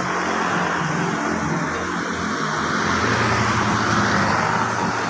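Steady motor-vehicle running noise: engine hum with tyre and road noise, holding level throughout.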